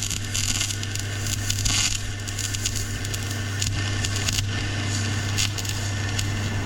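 MIG welder arc crackling steadily as a weld is run on a steel pin, with a steady low hum underneath.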